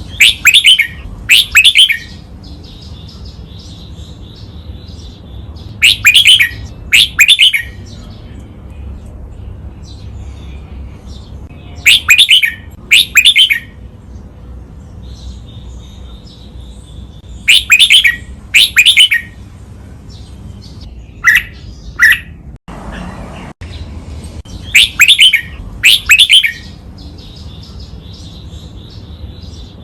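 Red-whiskered bulbul singing its song in doubled phrases: loud, chirpy phrases in pairs about a second apart, each pair repeated roughly every six seconds, over a steady low hum.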